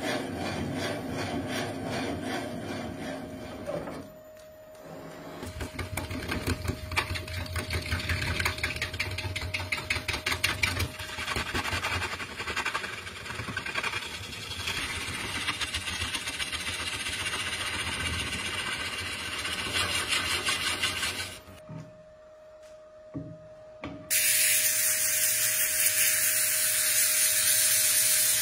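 Wood lathe spinning while tools cut the turning workpiece. First a boring bit cuts into the end of a resin cylinder, then a lathe tool cuts a wooden blank with a fast, even run of ticks. After a short lull comes a loud steady hiss as an abrasive pad wet-sands the spinning resin.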